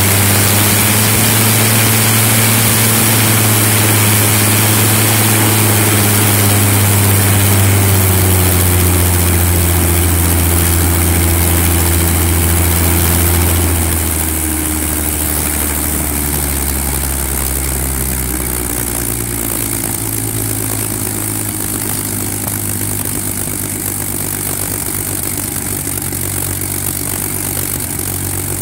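Spitfire Mk XIX's Rolls-Royce Griffon V12 engine running on the ground with its propeller turning, on an early run of the freshly installed engine in which it is not yet pulling its full revs. About halfway through, the revs fall off and it settles into a lower, quieter steady run.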